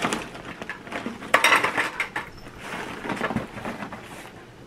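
Dry Cinnamon Toast Crunch Blasted Shreds cereal poured from the box into a bowl, the pieces rattling in in several spurts, the loudest about a second and a half in.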